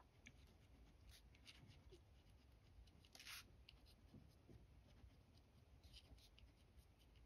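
Faint scratching of a Sharpie S-Gel pen writing cursive on lined notebook paper, in short irregular strokes with small pauses between them.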